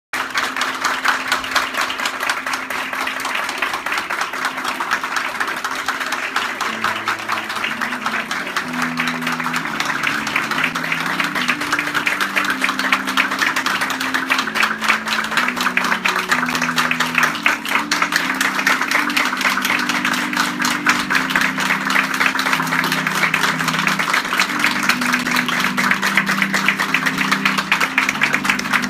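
A crowd of people applauding continuously, a dense patter of hand claps, over background music with a low, slowly stepping melody.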